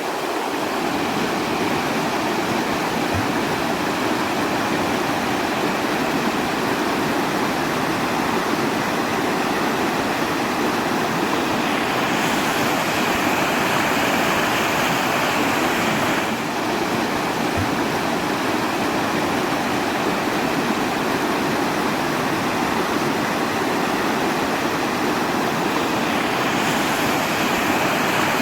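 Steady rushing water, a continuous even hiss used as white noise. The hiss brightens slightly about twelve seconds in, settles back a few seconds later, and brightens again near the end.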